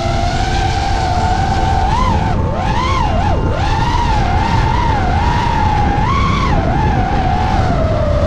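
DJI FPV drone's motors and propellers whining, the pitch rising and falling again and again as the throttle changes, with a low rush of air underneath.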